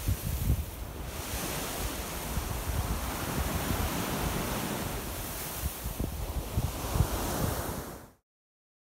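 Surf breaking and washing up a sandy beach, with wind buffeting the microphone. The sound cuts off suddenly near the end.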